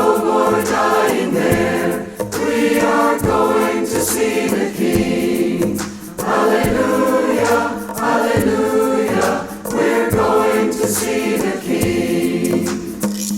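Church choir singing an upbeat gospel song, with hand percussion keeping a steady beat under the voices.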